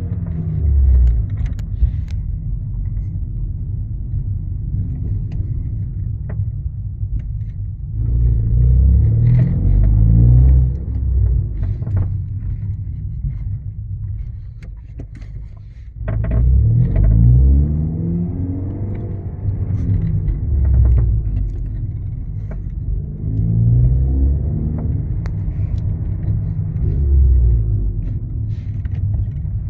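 Volkswagen Golf Mk6 1.4 engine pulling through several accelerations, rising in pitch each time over a low rumble. Short sharp knocks come here and there: the clanking under acceleration that the owner is trying to track down.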